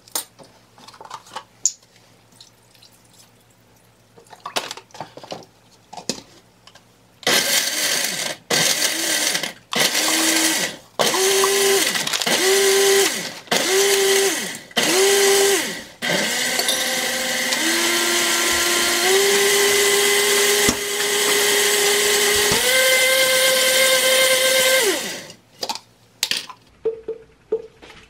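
Countertop blender with a glass jar blending a fruit smoothie with ice cubes: after some light clicks from handling, it is pulsed about seven times in short bursts, each spinning up, then run continuously for about nine seconds, its motor pitch rising in steps before it stops.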